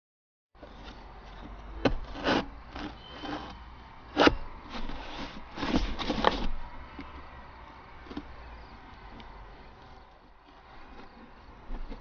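A knife stabbing into and sawing through a cardboard box: a run of sharp, scratchy strokes from about two to six seconds in, the loudest about four seconds in, then only faint light scraping.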